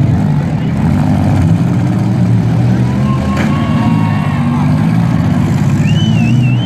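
Several demolition derby cars' engines running and revving together as they manoeuvre in the arena, with a sharp knock about three and a half seconds in. Near the end, a wavering high-pitched whistle.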